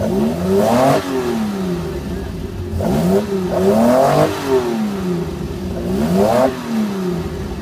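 Toyota 2000GT's straight-six engine free-revved in repeated throttle blips, the pitch rising and falling about four times.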